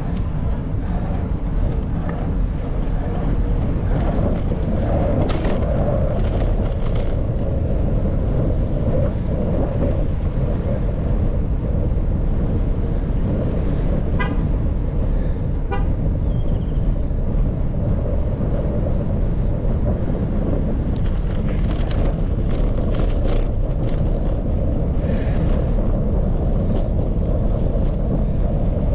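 Steady low wind rumble on the microphone and road noise from riding a bicycle, with scattered clicks and two short high tones about halfway through.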